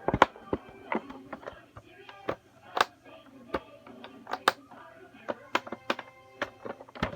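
Toys being handled: a run of irregular sharp clicks and knocks, several a second, with faint electronic toy tones underneath.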